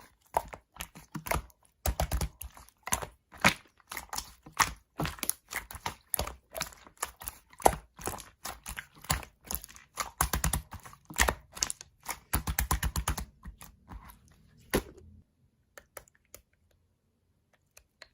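Slime being squeezed and poked by hand, giving fast, irregular wet clicks and pops. The clicking stops about fifteen seconds in, leaving only a few faint clicks.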